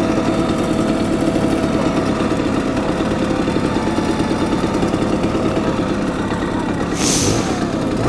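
Simson 50 cc two-stroke moped engine running at a steady speed, its pitch sagging slightly, with a short hiss about seven seconds in.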